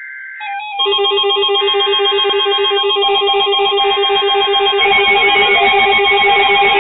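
Several weather alert radios sounding their alarms together as a new warning comes in: overlapping electronic beeping tones, one pulsing rapidly, starting about a second in and getting louder about five seconds in. A short high steady tone from the broadcast comes just before them.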